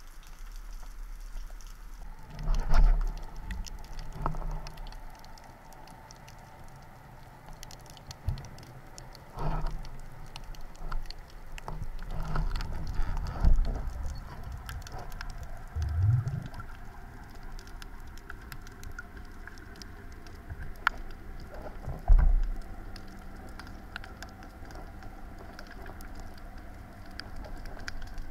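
Underwater sound around a diver and his speargun-mounted camera: a constant faint crackle of small clicks, with irregular heavy low thumps and swishes of water moving against the camera, the loudest about three, thirteen and twenty-two seconds in. A short rising low tone sounds about sixteen seconds in.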